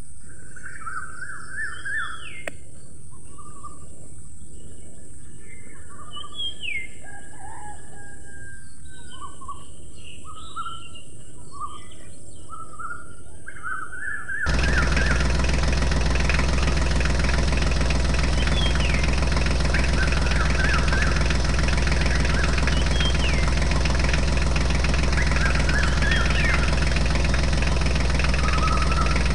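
Birds chirping and calling over a low background hum. About halfway through, a loud, steady tractor-engine idling sound starts suddenly and keeps on, with the birds still calling over it.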